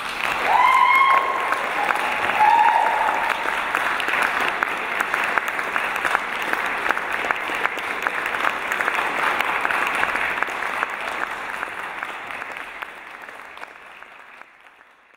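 Audience applauding, with a few short cheers in the first few seconds; the applause fades away near the end.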